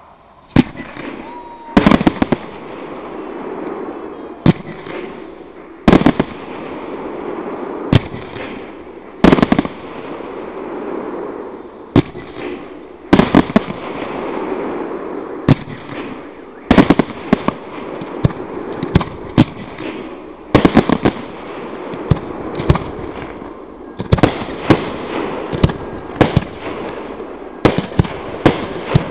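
A firework display: aerial shells bursting with sharp bangs, alone and in quick clusters every second or two, over a continuous crackle and hiss from the burning effects.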